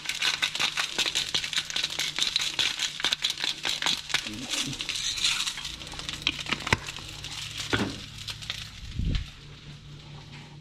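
Himalayan salt grinder being twisted: a fast run of gritty crunching clicks for about the first six seconds. Then come a few separate knocks and a dull thump about nine seconds in.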